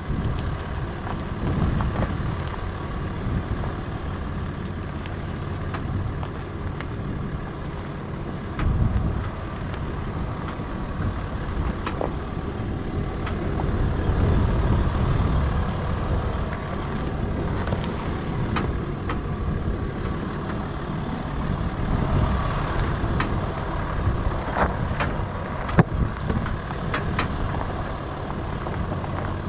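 Land Rover Discovery 4 crawling slowly along a rocky gravel track: engine running steadily, tyres crunching over stones, with scattered clicks of gravel and a sharp knock near the end.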